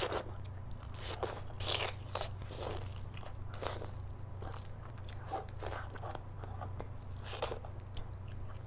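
Close-miked eating sounds: a person biting and chewing mouthfuls of rice and meat curry, with irregular crunches, over a steady low hum.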